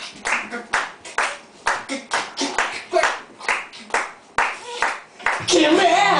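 Rhythmic handclapping from an audience at a live rock show, about two to three claps a second, with shouted voices between the claps. Near the end the band comes in loudly with singing.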